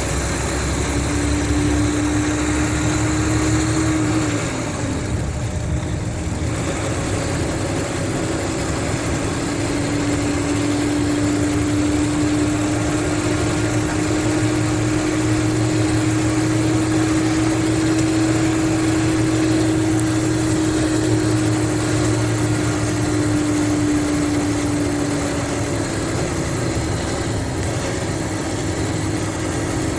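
Mercedes-Benz O500RSD coach's diesel engine running, with a steady drone. The drone's pitch dips about four seconds in, holds steady again for most of the time, and fades near the end.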